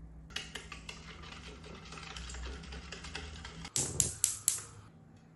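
A metal spoon beating egg batter in a ceramic bowl: quick, uneven clinks and scrapes, then three sharp, louder knocks about four seconds in.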